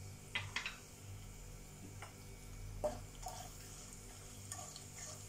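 Dry red chillies frying in hot sesame oil with spluttered mustard seeds in a pan: a faint, steady sizzle with scattered small pops and crackles.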